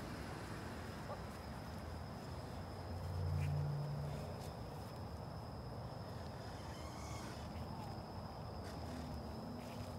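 Night insects trilling in one steady high-pitched tone over a low outdoor rumble, with a brief low hum about three seconds in.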